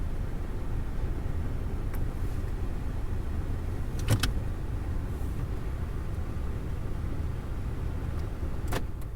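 Steady low rumble inside a car, with a few sharp clicks: a faint one about two seconds in, a loud double click about four seconds in, and another near the end, where the rumble drops away.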